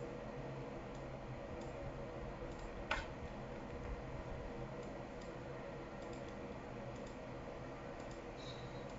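Computer mouse clicking a few scattered times, with one sharper click about three seconds in, over a steady low hum.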